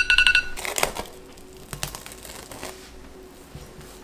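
Smartphone countdown-timer alarm beeping rapidly and cut off about half a second in: the end of the dough's 30-minute rest. Then rustling and crinkling of plastic wrap being pulled off the glass bowl.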